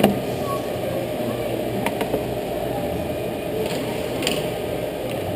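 Steady low din of an indoor go-kart track, heard through a kart-mounted action camera, with a few sharp clicks, the first and loudest right at the start.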